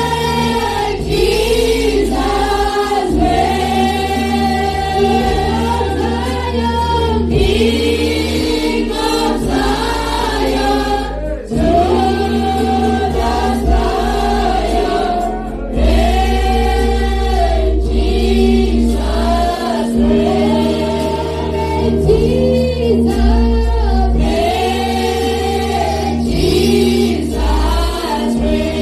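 A choir singing a gospel song over instrumental backing with a bass line that changes every few seconds.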